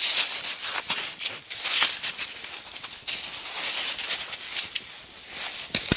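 Snow hissing and crackling on the smouldering embers of a campfire being put out, in swells of sizzle with sharp pops through them.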